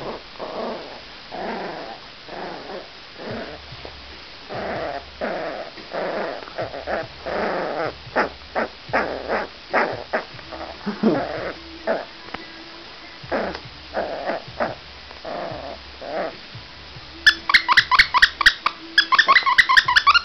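Young puppy growling in short bursts while tugging at a fleece blanket. Near the end comes a rapid run of sharp, high squeaks.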